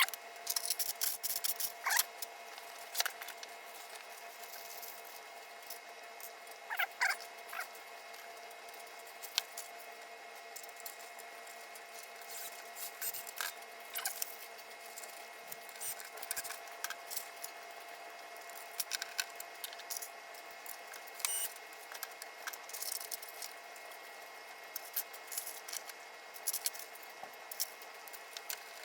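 Fast-forwarded hand work on a pinball playfield: scattered small clicks, taps and scratchy rattles from parts and tools being fitted, pitched up and sped along by the fast-forward.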